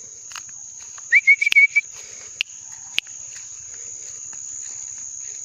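Steady high-pitched insect chorus, with a bird giving a quick run of short, loud chirps about a second in, followed by two sharp clicks.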